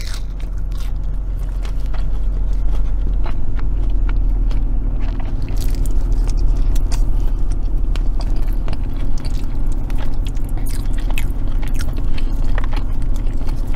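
Close-up chewing and biting of fried food, with many small crunches and mouth clicks, over the steady low rumble of the car's idling engine.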